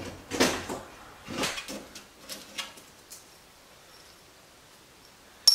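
Metal louvered vent grille rattling and scraping in a few short bursts as it is handled and swung open on its hinge, then a sharp metallic clink near the end.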